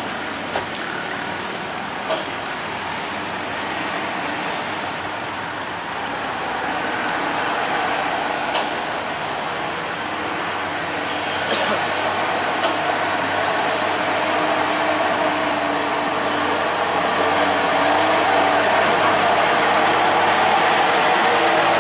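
Road traffic crawling round a hairpin bend: the engines of trucks and cars running at low speed, with a few short sharp clicks. It grows louder over the last few seconds as a motor scooter passes close.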